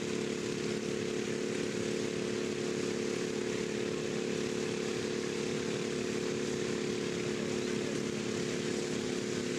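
Small engine of a racing riding lawn mower running at a constant speed, a steady drone that holds one pitch throughout.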